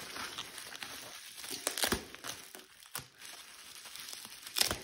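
Plastic bubble wrap crinkling and rustling as it is pulled off a package by hand, with a few sharper crackles about two and three seconds in and again near the end.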